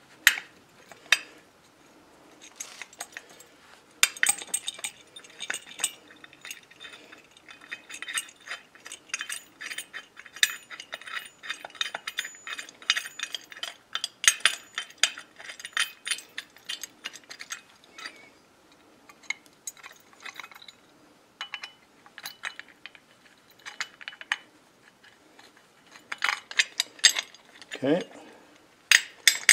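Hand ratchet clicking in quick runs as a bolt is turned through a spacer into a steel differential mounting bracket, with light clinks of metal parts. The clicking is densest through the middle and thins out toward the end.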